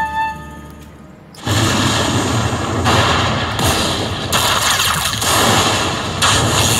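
Slot machine sound effect: after the game's tune fades, a sudden loud noisy blast sets in about a second and a half in. It goes on as a string of surges, each about a second long.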